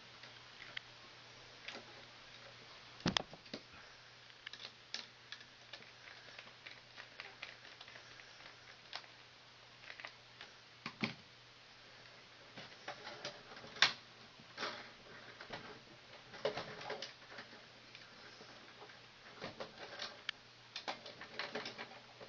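Scattered light clicks and taps of hands working wires, parts and small tools in an HVAC control panel, with a few sharper knocks, the loudest about three, eleven and fourteen seconds in.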